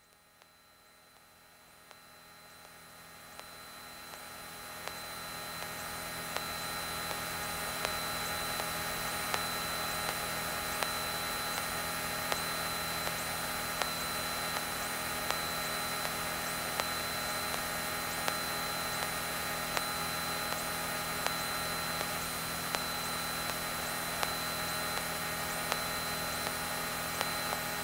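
Electrical hum and hiss on a Cessna 182's cockpit audio feed between radio calls, with several steady tones and faint regular ticks about once a second. The noise swells up over the first several seconds, then holds steady.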